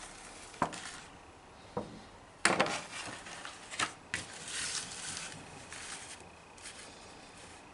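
A laminated paper certificate booklet being handled and folded over: a few sharp crinkling clicks, the loudest about two and a half seconds in, then a brief rustle.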